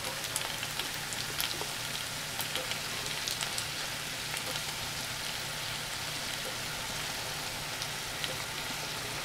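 Dumplings, sliced sweet peppers and onions sizzling steadily in a hot frying pan, with a fine crackle of small pops.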